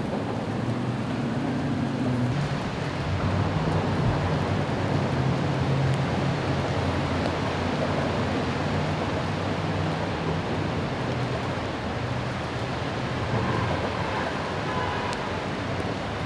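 Steady outdoor noise of rain and wind over floodwater, with the low hum of vehicle engines underneath, strongest through the middle.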